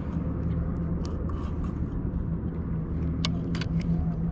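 An engine running steadily with a low, even drone, with a few faint clicks over it.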